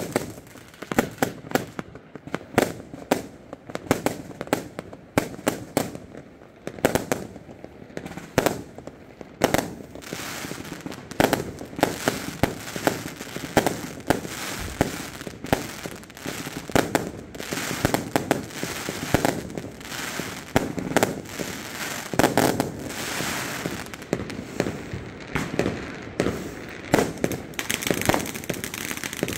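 New Year's fireworks going off close by: aerial bursts exploding overhead in a dense, irregular run of sharp bangs, several a second, with no break.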